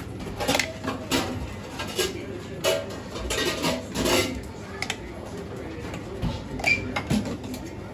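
Clinks and scrapes of metal kitchen utensils, a metal palette knife working on a crepe board, as chocolate spread is spread across a crepe. The short sharp clicks come several times a second in the first half and thin out after.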